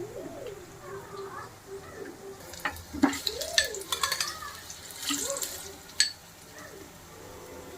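Metal kitchen utensils working in a cooking pan: a few sharp clinks and a short scrape as food is stirred.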